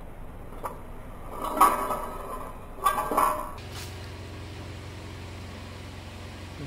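Metal wheel guard of an angle grinder set down on a tiled floor: a small click, then two metallic clatters with a short ring, about a second apart. A low steady hum comes in after them.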